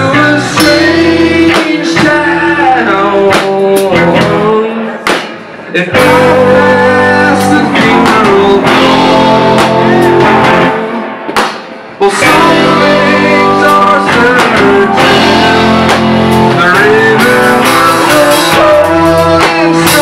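A rock band playing live: electric guitar and keyboard under a singing voice. The loudness dips briefly twice, and the full band comes back in hard about six seconds in and again at twelve.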